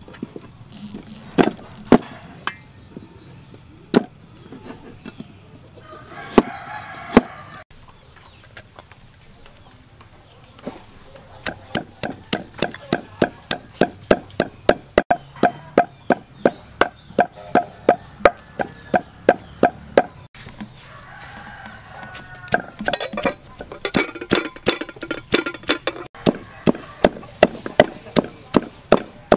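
A cleaver chopping a fresh root on a cutting board in a few separate knocks, then a wooden pestle pounding sliced lemongrass in a mortar: a steady run of strikes about two to three a second that starts about a third of the way in, breaks off briefly and resumes. Chickens call in the background a couple of times.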